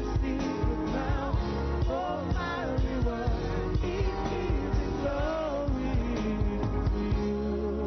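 Live gospel praise music: a singer with a band of drums, bass and keyboard playing a steady beat. The drums drop out near the end, leaving held chords.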